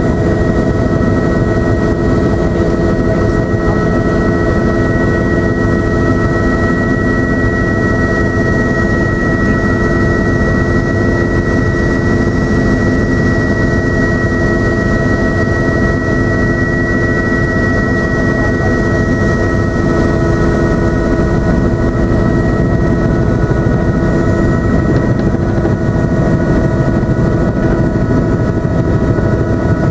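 Helicopter engine, rotor and gearbox noise heard from inside the cabin in flight: a loud, steady drone with a high whine that fades about two-thirds of the way through.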